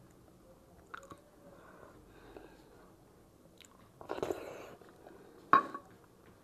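Close-up eating sounds of a person taking food by hand: a wet mouthful taken about four seconds in, soft chewing, and a sharp click a moment later, the loudest sound.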